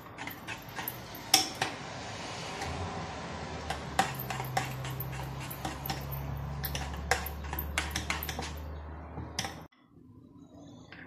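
A spatula scraping and knocking against a white saucepan as thick chocolate custard is stirred, in a quick run of clicks and scrapes. A low steady hum sounds underneath through the middle. All of it cuts off suddenly about a second before the end.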